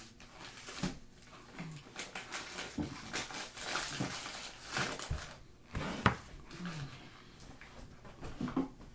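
Cornstarch powder being chewed close to the microphone: irregular, crunchy clicks, with a few short falling hums.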